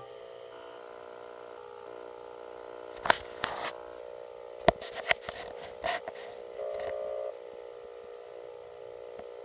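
A faint steady hum of tones from an old CRT television's speaker, swelling briefly about seven seconds in, with a cluster of sharp clicks and knocks between about three and six seconds in.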